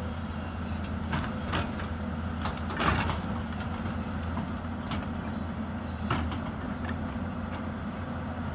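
Hyundai 220 excavator's diesel engine running steadily, with a scattering of short sharp knocks and clanks, the loudest about three seconds in.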